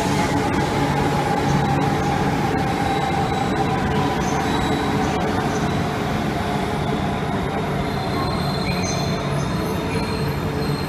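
JR East E4 Series 'Max' double-decker Shinkansen train moving past along a station platform: a steady rumble of wheels and running gear, with a faint whine that sinks slightly in pitch over the first few seconds.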